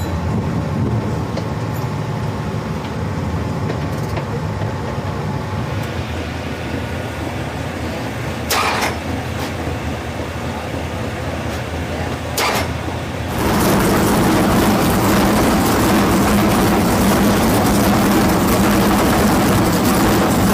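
Dirt late model race car engine running steadily, with two brief noisy bursts, then much louder from about thirteen seconds in.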